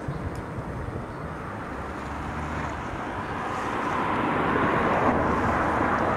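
Distant engine drone that swells to its loudest about five seconds in, then eases off a little.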